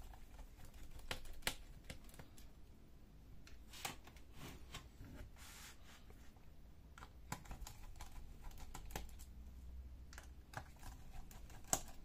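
Precision screwdriver working the small screws of a Dell Vostro 5471 laptop's metal hard-drive bracket: faint, irregular clicks and light ticks of metal on metal, with one sharper click near the end.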